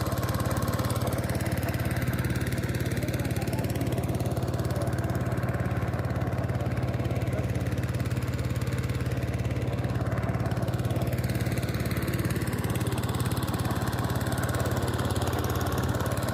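Small boat engine running steadily at an even speed, a constant low drone with no change in pitch.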